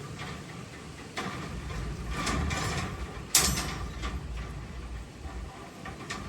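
Mechanical scraping and rattling that builds up, then a single sharp knock or clank about three seconds in, the loudest sound, followed by a few faint clicks, over a steady low hum.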